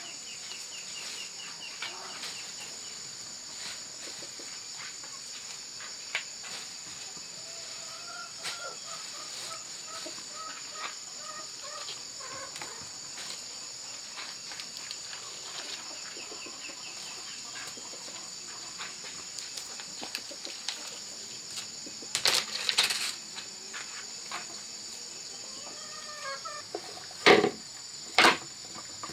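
Steady high-pitched drone of insects, with chickens clucking in short runs of calls. A few sharp knocks sound near the end.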